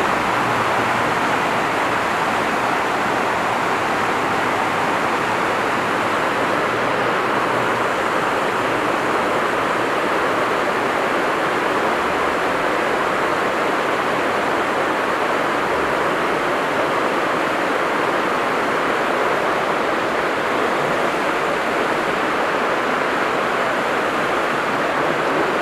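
Steady rushing of water, an even, unbroken noise at a constant level.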